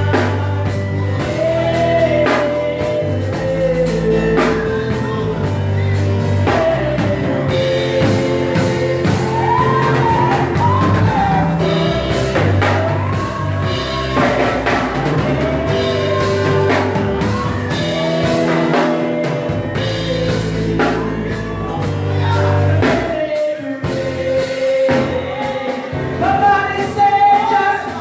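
Live gospel music with singing over a band: bass, drum kit and keyboard-like held notes keeping a steady beat. The band thins out for a moment near the end.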